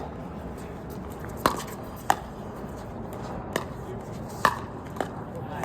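Pickleball paddles striking a plastic pickleball back and forth in a rally: about six sharp pops, with uneven gaps of half a second to a second and a half. Steady wind noise on the microphone underneath.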